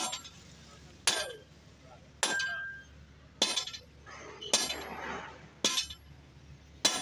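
Hand hammer striking a red-hot steel bar on an anvil in a steady rhythm, seven blows about one a second, each with a short metallic ring.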